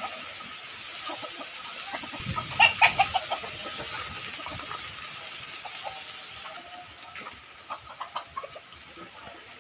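Chickens clucking in short calls, with the loudest burst of clucks about two and a half seconds in and a few quieter ones near the end.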